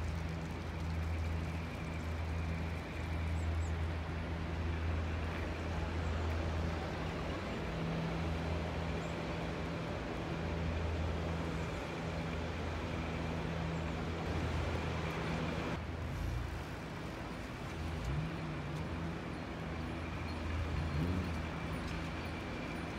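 Gondola lift station machinery running with a steady low hum and a faint high whine. Near the end come a couple of short rising engine-like notes.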